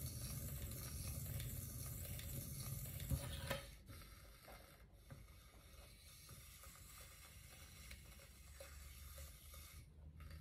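Turntable spinning a paint-covered ceramic tile, a steady whirring hiss with a low rumble, brought to a stop about three and a half seconds in with a brief knock; faint room sound after.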